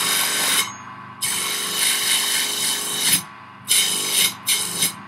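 A bench grinder fitted with a polishing wheel and abrasive paste runs with a steady motor hum while a kitchen knife blade is pressed against the wheel. The blade makes four passes of grinding noise; the longest, about two seconds, comes a little after the first second. The polishing takes fine scratches out of the blade.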